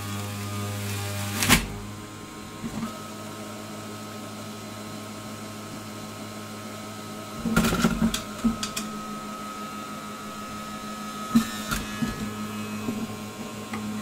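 Bosch 700 W centrifugal juicer running with a steady motor hum, with sharp knocks and brief grinding as pieces of fruit are dropped into the feed chute onto the spinning cutter: once about a second and a half in, a cluster around eight seconds, and again near eleven and a half seconds.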